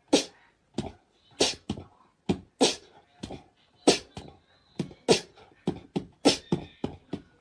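A string of short, sharp percussive clicks, unevenly spaced at about two to three a second, with near silence between them.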